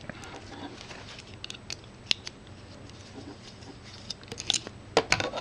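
Cable stripping tool cutting and working the outer jacket off a Cat5 Ethernet cable: scattered sharp clicks and snips, bunched more thickly near the end.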